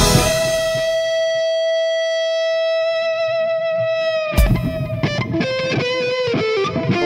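Distorted electric guitar (Ibanez JEM through a Marshall amp) holding one long sustained lead note for about four seconds over a near-empty backing. It then breaks into a quick phrase of bent, wavering notes as drums and bass come back in.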